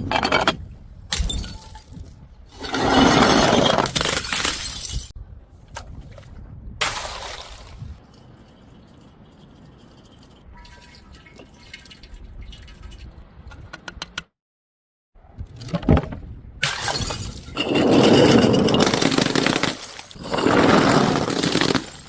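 Glass bottles smashing and shattering, one crash after another, with longer stretches of crunching, crushing noise between them.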